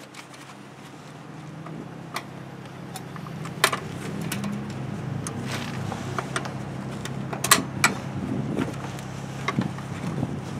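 Sharp metal clicks and snaps as the Jeep 4.0's throttle cables are pried off the throttle body linkage and cable bracket with a screwdriver. A steady low hum runs underneath.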